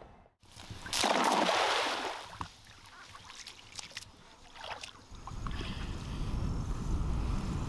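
Water sounds around a canoe: a loud splashing rush about a second in, a few light knocks, then a low wind rumble on the microphone from about five seconds in.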